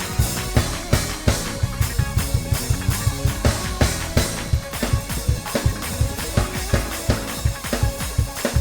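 Drum kit playing a fast gospel praise-break groove, with bass drum and snare hits driving steadily, over sustained keyboard chords.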